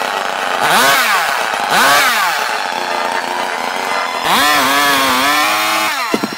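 Chainsaw motor being pull-started: twice it whirs up in pitch and dies away within about half a second, then it runs for almost two seconds at a wavering pitch before cutting off in a few clicks.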